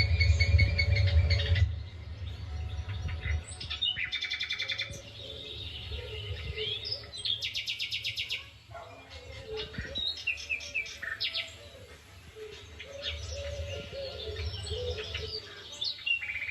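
Birds chirping and calling, with rapid trills about four seconds and eight seconds in. A loud low rumble underneath stops suddenly just under two seconds in.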